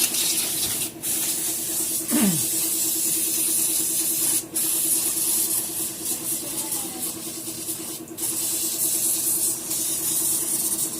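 A steady pressurised spraying hiss with a low pulsing hum underneath, cut off briefly three times.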